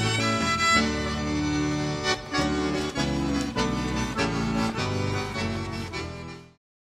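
Instrumental soundtrack music with sustained chords and sharp note onsets, stopping abruptly near the end.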